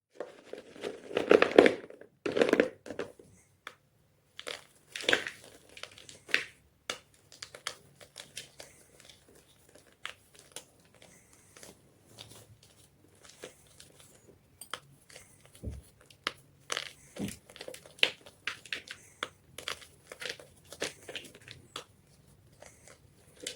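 White gym chalk being crushed and crunched, with two loud crunches in the first three seconds, then a long run of smaller crackles and crumbling snaps.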